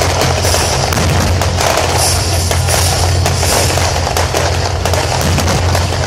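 Fireworks display: aerial shells bursting in a dense, continuous run of bangs and crackles.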